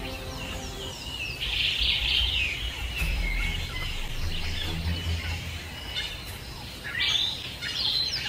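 Short high-pitched chirping calls in clusters, loudest about two seconds in and again near the end, over a low rumble.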